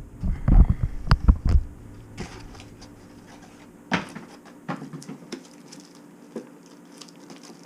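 Hands handling a fish finder and its sun cover during unboxing: a cluster of bumps and knocks in the first second and a half, then scattered light clicks and taps, one sharper click about four seconds in.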